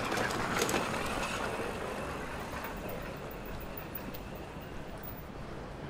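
A motor vehicle passing close by, loudest at the start and fading away over the next few seconds, with a few sharp clicks about half a second in.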